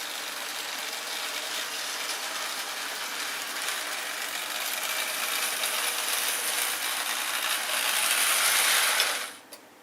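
Motorized toy train running along its track, a steady mechanical whirring rattle of motor and gears that grows louder as it is sped up, then stops abruptly about nine seconds in.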